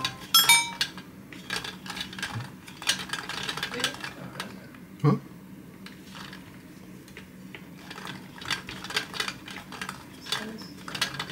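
Clear plastic drum of a DoggyMan treat dispenser turned by hand, the dry treats inside clattering and tumbling with many small plastic clicks. No treat drops out, which the owner suspects is a factory defect. A brief squeak about five seconds in.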